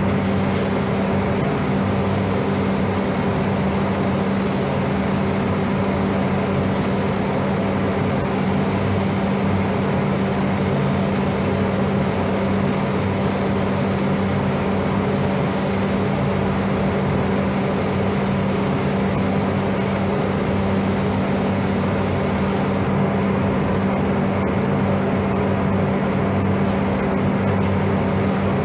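Paint spray booth's ventilation fans running with a steady hum, under the hiss of a compressed-air paint spray gun spraying a car; the hiss drops away a few seconds before the end.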